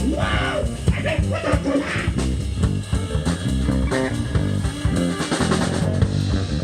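Rock band playing an instrumental passage with guitar, bass guitar and drum kit, with a few bending guitar phrases over the beat in the first couple of seconds.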